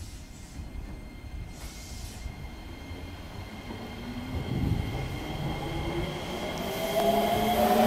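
JR 205 series 5000-subseries electric train pulling away from the platform: its VVVF inverter traction motors give steady high tones, then tones that rise in pitch from about six seconds in as it picks up speed, over a low running rumble that grows steadily louder. A short hiss about two seconds in.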